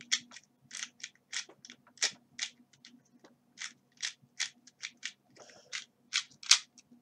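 Stickerless Dayan Zanchi 2x2 speed cube being turned quickly during a solve: a fast, uneven run of sharp plastic clicks, about three or four a second.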